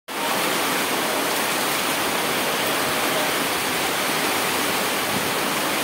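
Heavy rain pouring down in a loud, steady hiss.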